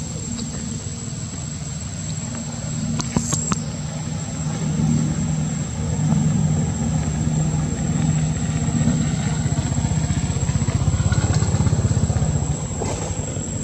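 A motor engine running steadily at idle, a low pulsing hum, with a few sharp clicks about three seconds in.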